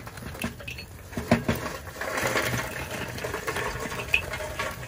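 Lit lump charcoal poured from a metal chimney starter into a Weber kettle grill, the chunks clattering and tumbling onto the grate. There is a sharp knock about a second in and a denser rush of clattering coals around the middle.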